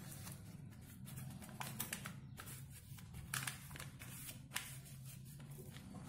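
Sheet of paper being folded and creased by hand: soft rustling broken by short, sharp crinkles, the loudest about two, three and a half, and four and a half seconds in, over a steady low hum.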